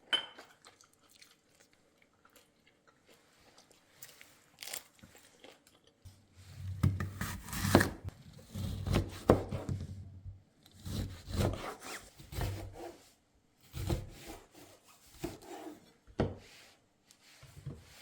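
Food preparation on a wooden surface: a few faint clicks, then from about six seconds in a run of irregular rubbing, sawing strokes, roughly one a second, like a knife cutting or scraping on a wooden board.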